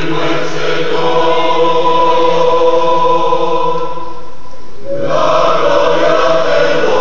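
Mixed choir of women and men singing a hymn in long held chords. About four seconds in the singing briefly drops back, and a new held chord comes in about a second later.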